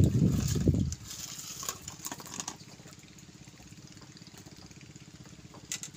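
A loud low rumble for about the first second, then faint clicks and rustles as a small freshly caught fish is handled on the fishing line, over a steady faint low hum.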